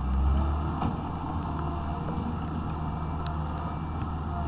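Wheeled excavator's diesel engine running steadily while its hydraulic boom and bucket dig, with a few faint light ticks.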